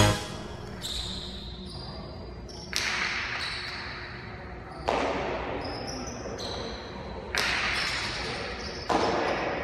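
Jai alai pelota cracking against the frontón walls during a rally: about five sharp hits roughly two seconds apart, each echoing away in the large hall.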